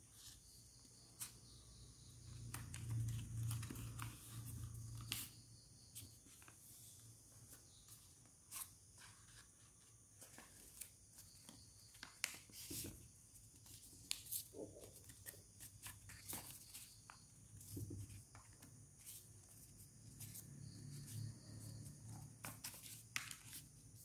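A square of origami paper being folded and creased by hand on a wooden table: faint rustling and crinkling with scattered sharp crackles as creases are pressed. It is louder for a couple of seconds near the start and again near the end.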